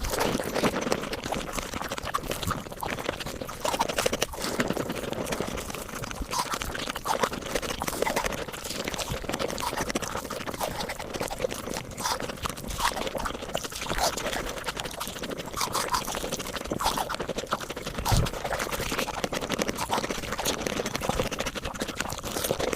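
Mukbang eating sounds played back at five times speed: rapid chewing and crunching run together into a dense stream of short clicks and smacks.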